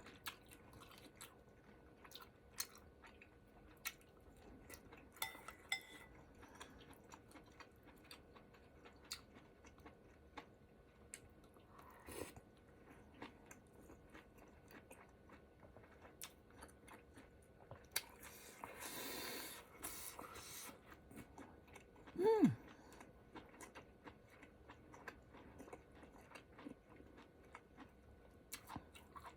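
Close-up chewing of ramen noodles, with many small wet clicks and smacks. About two-thirds through comes a long slurp, and a few seconds later a short burp that drops in pitch.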